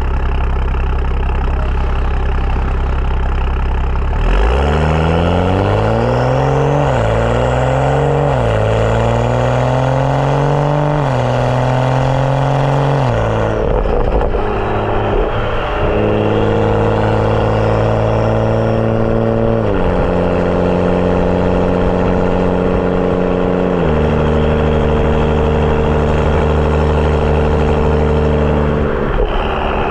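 BMW 335i's N55 turbocharged straight-six through a catless downpipe and M Performance exhaust, idling, then about four seconds in pulling away and rising in pitch through three quick upshifts. It then eases off and cruises, with two more shifts later on.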